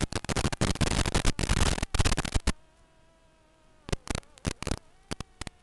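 Loud crackling radio static from an analog FPV video link breaking up: a dense burst for about two and a half seconds, then short separate crackles near the end. Underneath runs a faint steady whine from the quadcopter's motors.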